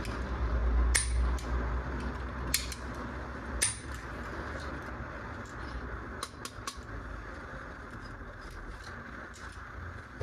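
Scattered sharp clicks and knocks of hard plastic toy gun parts and packaging being handled, with a quick run of clicks a little past the middle. Under them run a steady hiss and a low rumble that dies away about a third of the way in.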